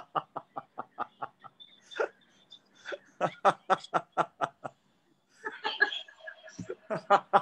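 People laughing over a video call, in several bursts of quick ha-ha pulses, about five a second, with short pauses between them.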